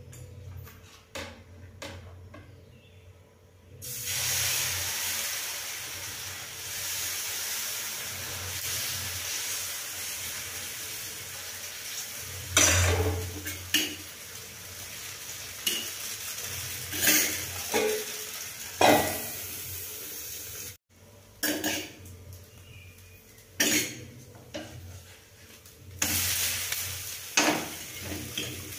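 Dosa batter sizzling on a hot dosa tava, starting suddenly about four seconds in and then running steadily. Short knocks and scrapes of a metal utensil against the pan come on top from the middle onward.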